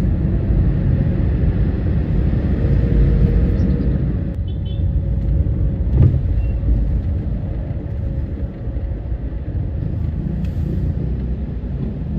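Low, steady rumble of a car moving slowly through city traffic, heard from inside the cabin, with a single thump about halfway through.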